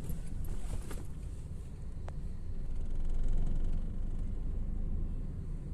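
Low, steady rumble of a vehicle running, with light rattling in the first second and a single sharp click about two seconds in.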